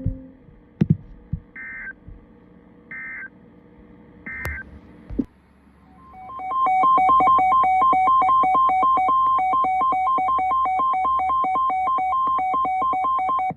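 Emergency Alert System data bursts on NOAA Weather Radio: three short, evenly spaced chirps about a second and a half apart, marking the end of the watch message. Then a loud electronic alert tone comes in about 6 seconds in, pulsing rapidly between two pitches, and cuts off sharply. It is the alarm that comes before a new severe thunderstorm warning.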